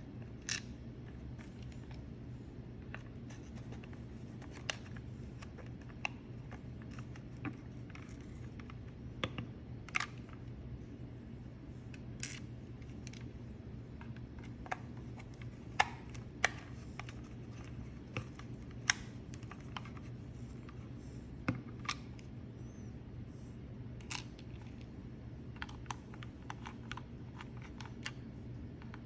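Plastic parts of an Xbox One controller being handled and fitted back together: irregular sharp clicks and taps, a few louder snaps in the middle, over a steady low hum.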